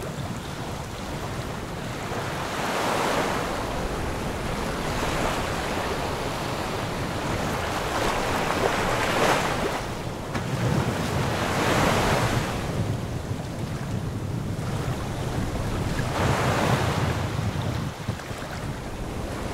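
Wind buffeting the microphone over sea water washing against a sailboat's hull, swelling in washes every few seconds.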